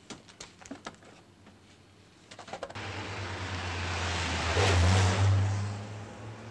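A car drives past, its engine and tyre noise swelling to a peak about five seconds in and then fading. Before it, a few light clicks and rustles of a packet being handled.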